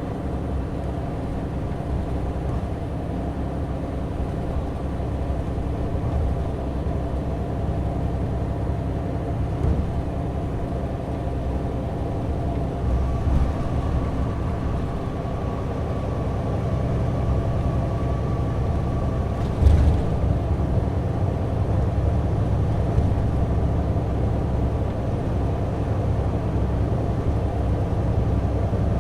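Cabin sound of a Mitsubishi Fuso Aero Ace coach running, a steady engine drone over road rumble. A faint whine comes and goes midway, and there is one short knock about 20 seconds in.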